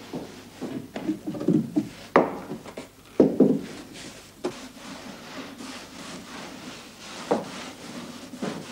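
A floor being scrubbed by hand: irregular rubbing and scraping with a few sharp knocks, the loudest about two and three seconds in.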